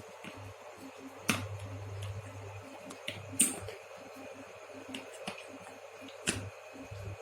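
Small plastic toy kitchen pieces being handled and knocked together: three sharp clicks, about a second, three and a half seconds and six seconds in, with lighter ticks between them.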